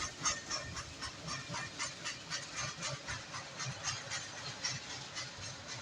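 Freight train rolling past, its wheels clicking over the rail joints in a steady clickety-clack of about four clicks a second over a low rumble.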